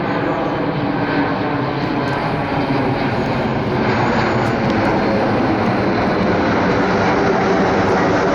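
Embraer E190 jet airliner's turbofan engines, a steady rushing jet noise that grows a little louder about halfway through.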